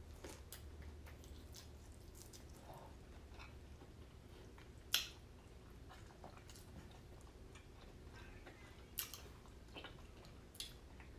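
A person chewing and biting food, faint, with scattered small clicks; a sharper click about five seconds in and another about nine seconds in.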